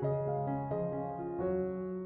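Soft background piano music, a new note or chord every half second or so.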